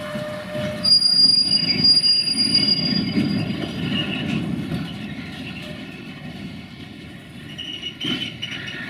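Container freight wagons rolling slowly on curved track behind a shunting hybrid locomotive, a steady rumble of wheels with a high, steady wheel squeal that starts abruptly about a second in and lasts a couple of seconds. A shorter squeal and a few clanks come near the end.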